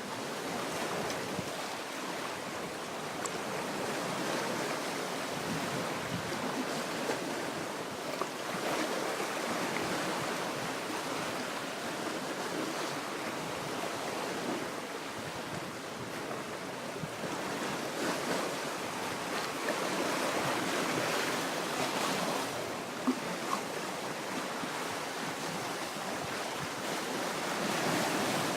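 Black Sea surf: waves washing onto the shore in a steady rush, swelling and easing gently.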